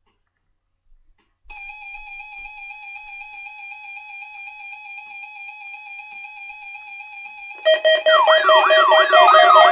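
Electronic alert tones of an Emergency Alert System monthly test: a steady, pulsing multi-pitch tone starts after a second and a half of silence. About seven and a half seconds in, a louder siren-like tone joins, sweeping rapidly up and down.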